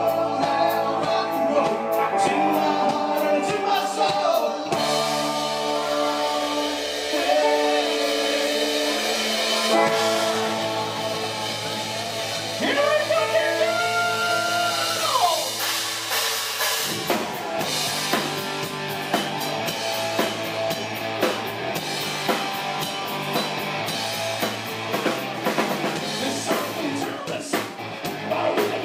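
Live rock band playing: electric guitar, bass guitar and drum kit, with a man singing.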